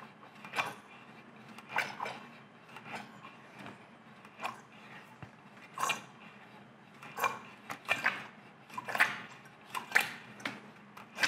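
Alemite 4035 lever-action oil gun being pumped: a short click with each stroke of the lever, roughly one a second, as oil is forced through a Zerk fitting into a lathe compound slide to flush out old grease.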